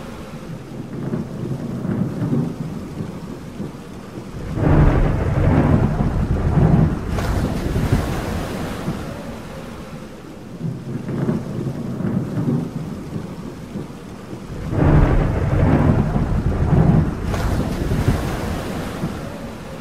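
Thunderstorm: steady rain with two long rolls of thunder, one about five seconds in and another about fifteen seconds in.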